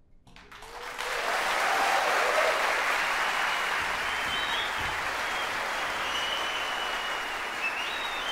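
Audience applause in a concert hall, starting about half a second in and swelling to full strength within a second, then holding steady.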